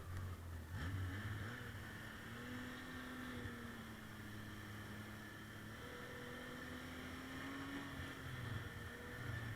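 Arctic Cat M 7000 snowmobile engine running steadily, its pitch drifting gently up and down.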